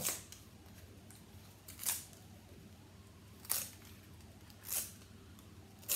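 Release-paper backing being peeled off adhesive foam squares on a card frame: four short, crisp peels about a second or so apart.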